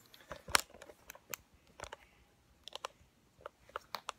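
Scattered sharp clicks and taps, the loudest about half a second in, as small hands fiddle with a small cardboard product box, trying to open it.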